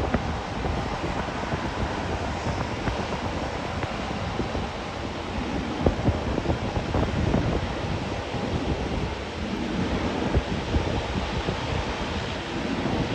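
Wind buffeting the camera microphone: a gusty, rumbling rush that swells and eases, with no clear engine tone.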